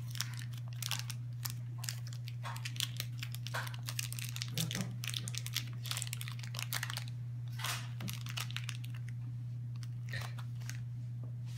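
Thin plastic blind-bag packaging of a Shopkins toy crinkling and tearing as it is picked open by hand, in many short irregular crackles, over a steady low hum.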